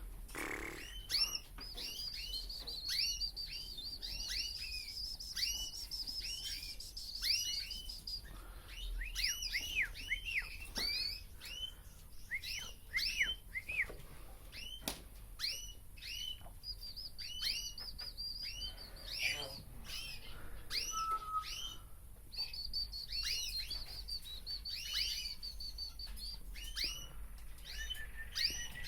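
Male grey-wing colour canary singing: quick chirping notes that sweep down in pitch, broken three times by long, high, even trills.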